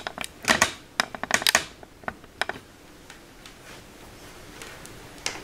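Clicks and knocks of a digital multimeter and its test leads being handled and set down on a wooden table: a quick cluster of sharp clicks over the first two and a half seconds, then quiet room tone with one more click near the end.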